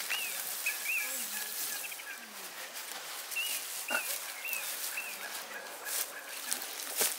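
Dry straw rustling and crackling as handfuls are pressed into a metal pot and trodden down. Behind it an animal gives short, high calls, about two a second, in two runs.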